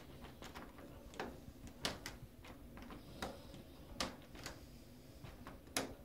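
Brass-finished door knob being turned and worked by hand, its latch and spindle clicking at irregular moments, with the sharpest click near the end.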